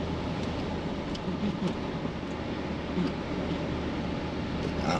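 Chevy Silverado HD pickup driving on beach sand in four-wheel drive, heard from inside the cab: a steady low engine and tyre rumble with a few faint ticks.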